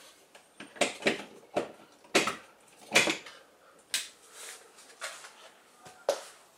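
A series of about nine sharp knocks and clatters at irregular spacing, the kind made by handling objects and stepping on a wooden floor.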